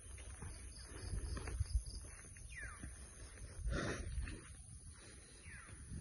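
Rural outdoor ambience: birds calling, including two falling whistled notes, over a steady high hiss and a low rumble of wind on the microphone. A brief louder rustle comes about four seconds in.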